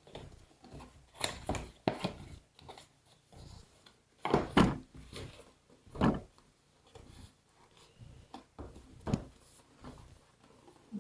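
Hands handling and opening a cardboard product box on a wooden table: irregular scrapes, rustles and knocks of cardboard, the loudest knocks about four and a half and six seconds in.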